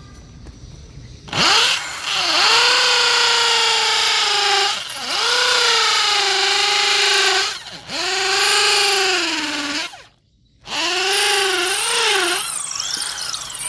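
Ryu RID13-1RE 600 W corded impact drill running in hammer mode at a middle speed setting, driving a 6 mm bit into broken concrete wall rubble. It starts about a second in and runs in spells, its pitch sagging and recovering under load; it stops briefly about ten seconds in, then runs again.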